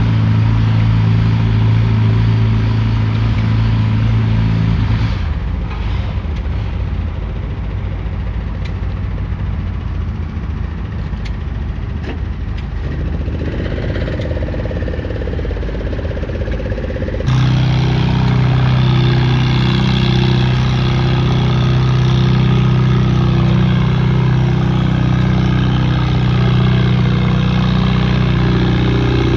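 Engine running steadily. It drops back about five seconds in, then a loud engine sound cuts in abruptly about two-thirds of the way through, with a brief rise and fall in pitch just before.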